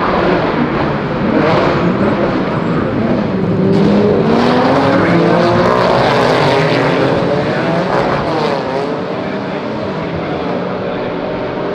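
Several GT4 race cars passing at speed, their engines overlapping with notes that climb and fall as the cars accelerate and go by. The sound is loudest about four to seven seconds in.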